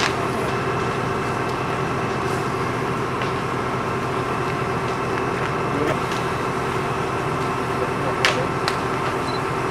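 Fire engine pump running with a steady drone and hum, with a few sharp cracks from the burning mobile home, two of them close together near the end.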